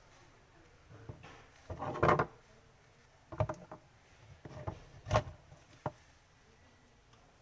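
Several short knocks and clatters of hard parts being handled, the loudest about two seconds in and again about five seconds in.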